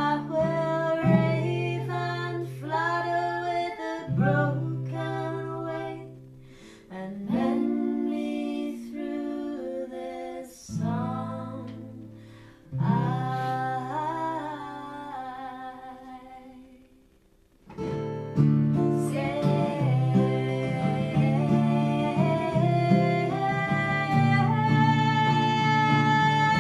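Live folk song: a woman singing to strummed acoustic guitar, with accordion chords underneath. The music drops briefly to near silence about two-thirds of the way through, then comes back fuller with sustained accordion tones.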